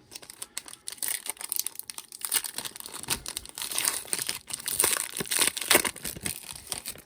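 Foil trading-card pack wrapper crinkling continuously as it is handled and torn open.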